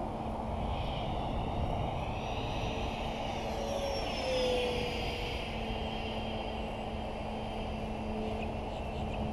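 FMS 70mm F-16 RC jet's 10-blade electric ducted fan whining as it flies past, its pitch bending up and down and falling as it passes, over a steady low rumble.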